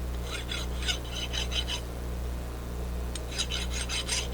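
Freshly milled aluminium edge being deburred by hand: two runs of quick rasping strokes, about five a second, over a steady low hum.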